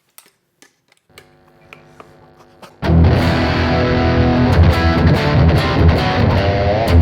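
A few faint clicks and a quiet amp hum, then about three seconds in a Stratocaster electric guitar starts playing loud with distortion through the amp, sent over an Xvive U2 wireless guitar transmitter.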